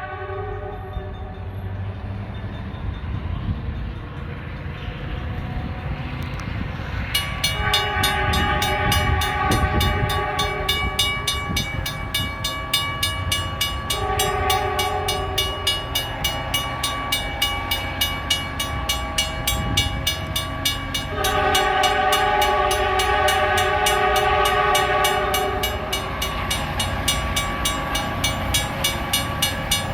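New England Central SD40T locomotive approaching a grade crossing, its K5LA chime horn sounding three times: long, short, then long, over a low locomotive rumble. The crossing signal bell starts ringing about seven seconds in, at about two strikes a second.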